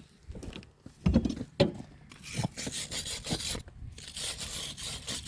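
A hand tool scraping rust off a car's rear disc brake hardware in quick back-and-forth strokes. A couple of knocks come about a second in, then steady scraping with a short pause partway through.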